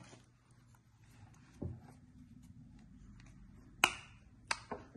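Small sharp clicks from handling a Canon PowerShot G7X Mark III compact camera: a soft knock, then a crisp click a little under four seconds in and a second click shortly after.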